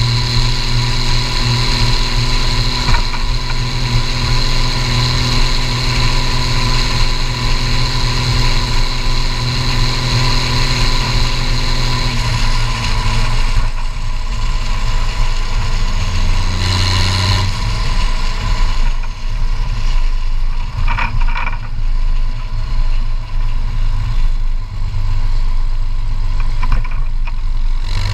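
Case IH 1455 XL tractor's turbocharged diesel engine through a straight-pipe exhaust, running steadily under throttle while driving. About halfway through it eases off to lower revs, gives one short burst of throttle, and picks up again at the very end.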